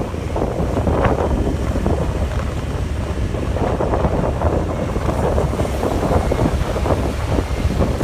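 Wind noise on the microphone: a steady, fluttering rush of wind buffeting the mic as it moves along the street.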